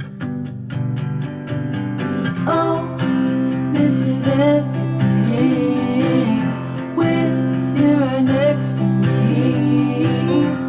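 A song with guitar and a singing voice played back through a JBL SCS 178 satellite speaker as a sound test. A steady beat of ticks leads for about the first two seconds, then the voice comes in.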